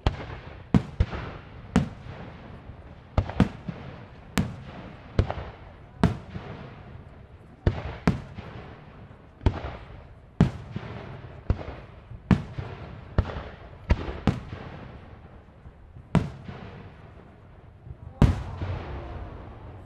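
Aerial firework shells bursting in a display, about twenty sharp bangs at irregular spacing, roughly one a second, each followed by a short rolling rumble. The loudest bang comes near the end.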